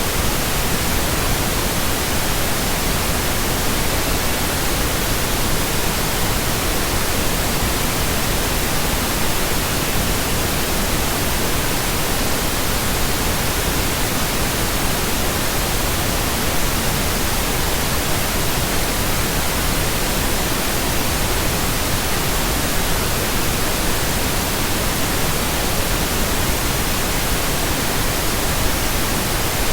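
Steady electronically generated pink noise: a constant, even hiss with no change in level or character.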